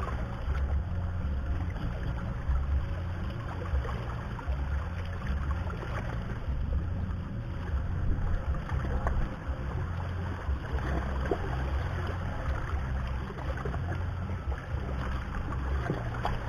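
Wind buffeting the microphone in a low, uneven rumble, over a steady wash of open-air noise by the water.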